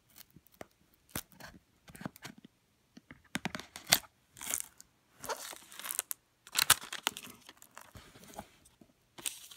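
Paper warranty seal on a cigar box tearing and the box being worked open: an irregular run of sharp paper crackles and scrapes, sparse at first and busier from about the middle on.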